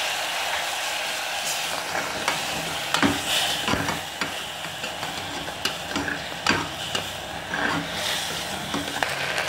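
Sliced onions and ginger-garlic paste sizzling in oil in a pressure cooker while being sautéed, with a steady hiss. A slotted spatula scrapes and knocks against the pot at irregular moments as it stirs.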